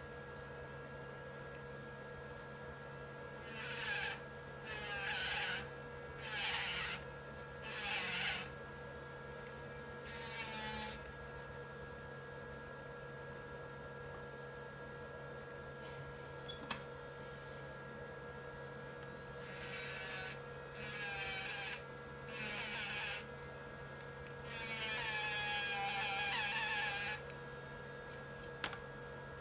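A file rasping against a plastic pinion gear spinning on a running Mini 4WD motor shaft, to trim the gear down to about 3 mm. It goes in short strokes of about a second each: five in quick succession, then after a pause four more, the last stroke longer. A steady hum runs underneath.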